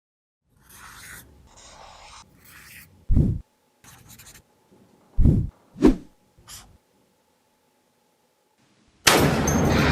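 Faint scratching and rubbing, then a few dull thumps, then quiet. About nine seconds in, an M107 .50-cal rifle fires: a sudden, very loud blast whose rumble rolls on and slowly fades.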